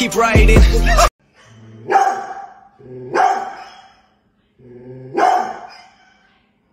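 A large dog barking three times, a second or two apart; each bark starts low and quiet and swells into a loud woof. Hip-hop music cuts off about a second in, before the first bark.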